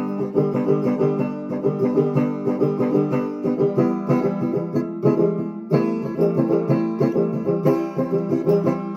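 Instrumental break in a folk song: banjo picking rapid plucked notes over acoustic guitar, with no singing.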